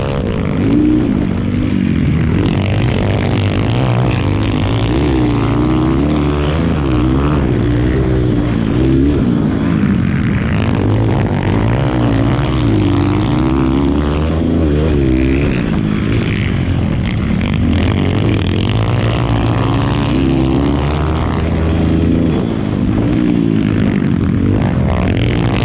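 Dirt bike engine ridden hard over a rough trail, its pitch rising and falling every second or two as the throttle is opened and closed.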